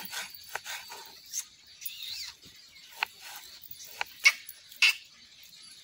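Birds calling: scattered chirps and short gliding calls, then a few short, sharp calls about three to five seconds in.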